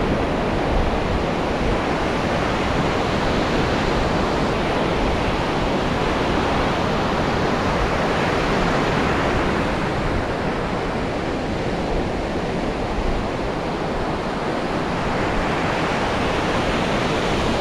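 Ocean surf breaking on the beach: a steady, even rush of waves.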